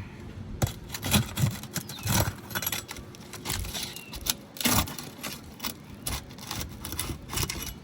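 Flat pry bar working under asphalt shingles, unsealing them and prying them loose: an irregular run of sharp scrapes, clicks and knocks of steel on shingle.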